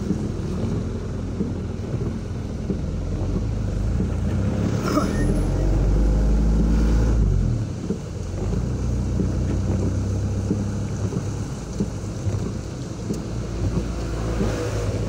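Engine and road noise from a vehicle driving along a rain-wet street, with wind buffeting the microphone. About halfway through, the engine pulls harder and grows louder for a few seconds, then eases back.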